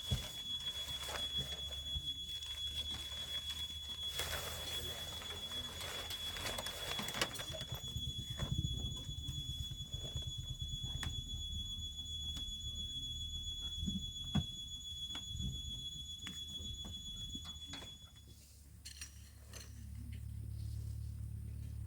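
A steady high-pitched tone that cuts off suddenly near the end, over a low steady hum, with scattered sharp ticks throughout.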